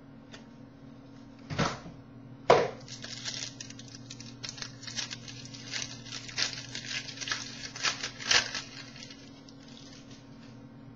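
Hockey card packaging and cards being handled: two sharp crackles of wrapper about one and a half and two and a half seconds in, then a run of light rustling and clicks as the cards are worked through, over a steady low hum.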